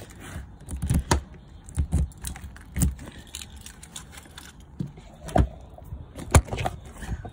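A bunch of keys jangling and a caravan storage locker being unlocked and its hatch opened, with a string of short clicks and knocks, the loudest about six seconds in.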